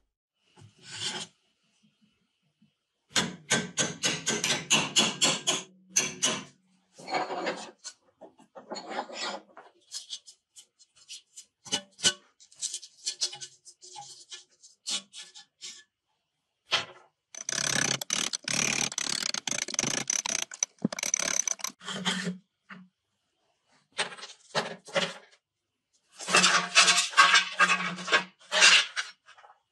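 Rough rasping and scraping strokes on rusted steel rake parts. The strokes come quickly, about four a second, in three main runs with shorter scrapes and pauses between them.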